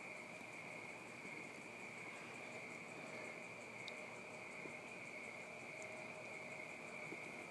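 Crickets trilling steadily at night, one unbroken high-pitched trill, heard faintly.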